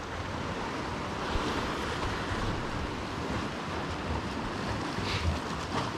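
Sea swell surging and washing against the rocks at the foot of a cliff, a steady wash of surf, with wind on the microphone.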